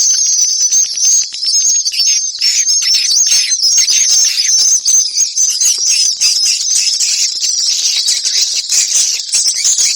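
Dense, continuous high twittering and chirping of swiftlets: a swiftlet lure call recording of the kind played to draw swiftlets into nesting houses.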